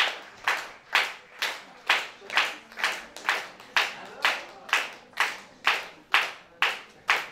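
Concert audience clapping in a steady, even rhythm, about two claps a second, each clap trailing off briefly in the hall.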